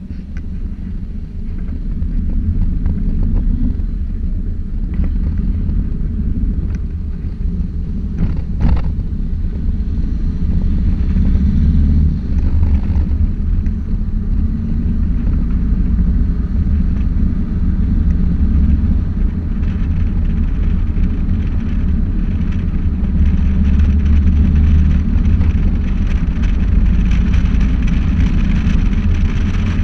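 Steady low rumble of a moving vehicle, road and wind noise, growing louder about two seconds in.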